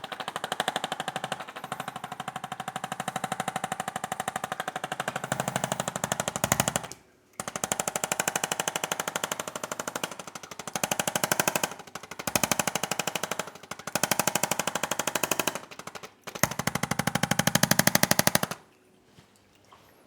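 Electric percussion massager hammering rapidly, many strikes a second, in several runs with short breaks, then stopping about a second and a half before the end.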